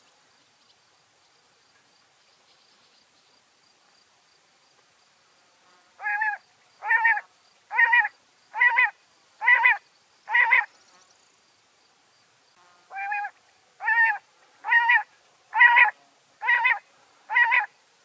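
Common quail calling: two runs of six short, sharp notes, about one a second, with a pause of about two seconds between the runs.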